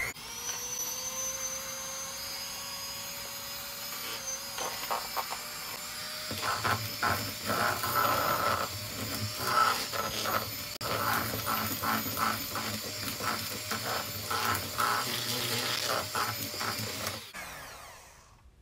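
Electric hand mixer running in a bowl of crumbly cookie dough. Its motor whines up at the start and cuts off near the end. From about six seconds in, the beaters clatter irregularly through the dough and against the bowl.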